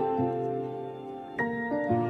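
Soft, slow instrumental background music: held notes, with a new chord struck about one and a half seconds in.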